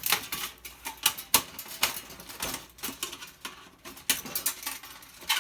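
Irregular metallic clicks and rattles of sheet-metal parts of a toaster oven being pried and worked loose by hand.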